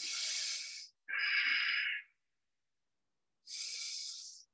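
A woman breathing slowly and deeply close to the microphone: two full breaths, each an in-breath followed by an out-breath, with a pause of over a second between the two breaths.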